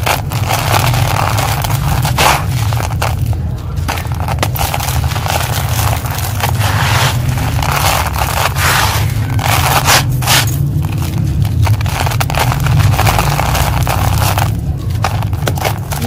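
Crumbly, dusty concrete chunks crushed by hand over an upturned plastic colander: gritty crunching and crackling as grit and powder fall onto the plastic mesh, in spells with short pauses between handfuls, over a steady low rumble.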